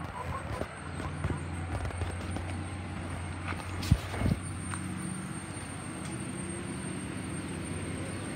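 A steady low motor hum, like a running engine, with a few sharp knocks about four seconds in.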